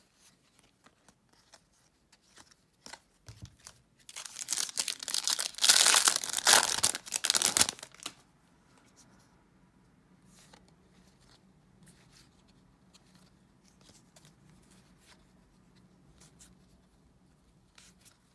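Foil wrapper of a baseball-card pack tearing and crinkling for about four seconds, starting a few seconds in, loud against the rest. Around it are faint scattered clicks of cards being slid and flipped by hand.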